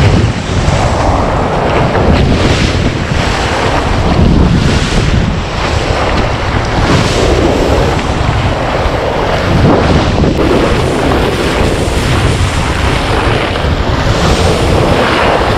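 Whitewater rushing and spraying around a surf kayak as it rides a breaking wave, with heavy wind buffeting on the bow-mounted camera's microphone.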